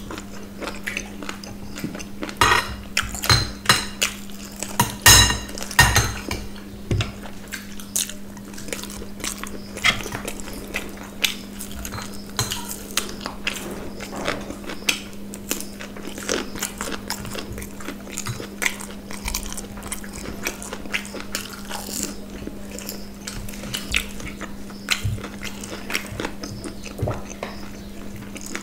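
Eating at a table: metal forks clinking and scraping on plates, with biting and chewing of food, most clatter a few seconds in. A steady low hum runs underneath.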